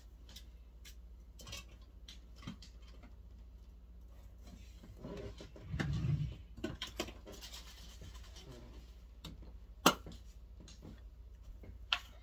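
Scattered light clicks and knocks of small objects being handled and set down. There is a louder rustle and bump about six seconds in, and two sharp clicks near the end.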